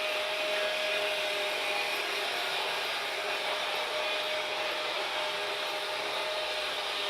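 Freight train running on the rails: a steady, even rush of wheel and rail noise with a faint steady tone running through it.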